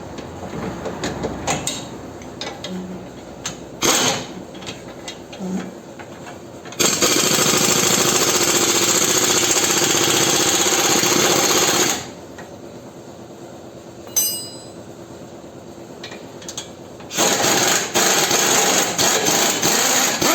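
Air-powered tool hammering in two long bursts, the first about five seconds and the second about three, on a car's suspension parts, with separate metallic clanks and knocks from hand tools between the bursts.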